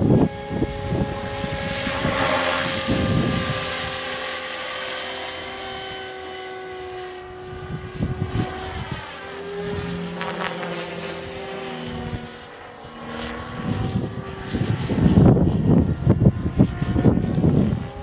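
Electric CopterX 500 RC helicopter flying: a steady high motor whine and rotor tones that shift a little in pitch as it manoeuvres. Gusts of strong wind rumble on the microphone near the start, about two seconds in and again near the end.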